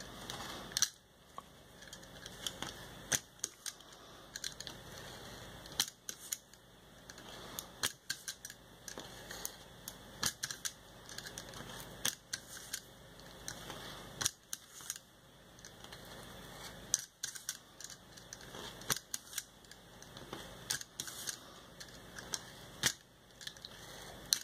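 Utility knife cutting through two layers of paper, a drawing taped over black paper: a run of short, sharp clicks and scratches at uneven intervals as the blade pierces and draws through the paper.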